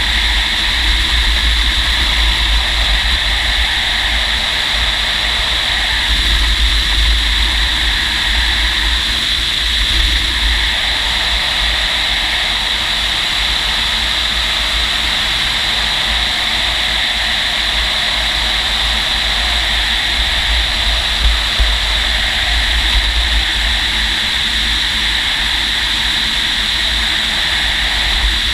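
Steady rushing wind noise from airflow over a glider in flight under aerotow, buffeting the exposed camera microphone with a deep rumble and a constant high whistle.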